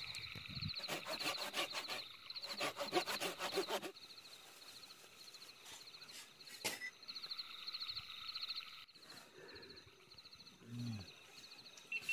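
A saw cutting wood in two spells of quick strokes over the first few seconds, then stopping. A steady, rhythmic chirping call carries on throughout, with a single sharp snap about two-thirds of the way through.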